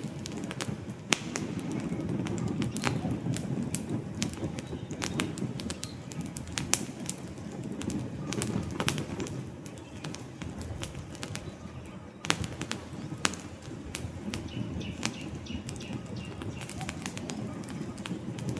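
Wood campfire crackling and popping, with frequent sharp snaps over a steady low rumble of the flames. A faint high bird call comes in near the end.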